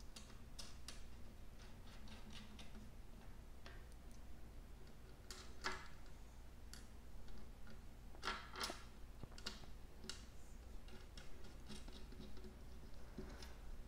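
Small metal clicks and taps of washers and nylon lock nuts being set onto the bolts of a propeller hub and started on the threads by hand: scattered, irregular clicks, a few louder ones.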